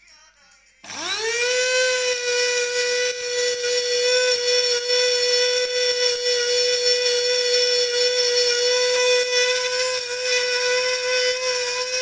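Small electric blade spice grinder switched on about a second in, its motor whining up to speed and then running at a steady high whine as it grinds whole spices to powder.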